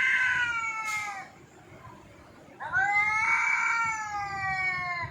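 A cat meowing in long, drawn-out calls. One meow trails off about a second in, and another begins just past the halfway point and lasts over two seconds, rising at first and then slowly falling in pitch.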